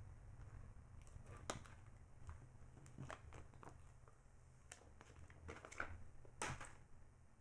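Faint handling sounds: a few small clicks and crinkles of thin plastic screen-protector film being peeled off an iPhone 6's screen and flicked away.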